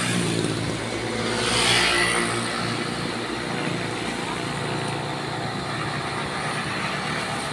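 Road traffic: motor vehicle engines running steadily, with a vehicle passing close by about two seconds in, and a motorcycle going past near the end.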